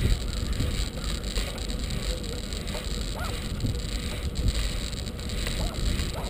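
Wind buffeting a bicycle-mounted camera's microphone, over a low rumble and rattle from the bike rolling along a paved path. Two faint short squeaks, about three seconds in and near the end.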